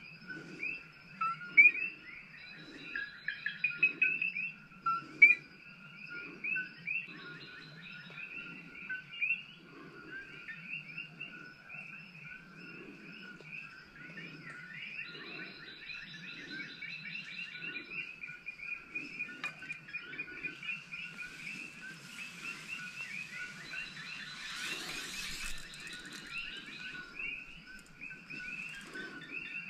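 A dense, continuous chorus of small chirping calls from wild animals, with many overlapping callers. A soft low pulse repeats underneath about every two-thirds of a second.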